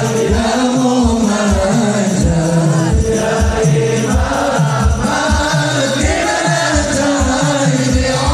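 Sholawat sung live through a PA during the standing Mahalul Qiyam: a lead voice and many voices chanting together over repeated low drum beats.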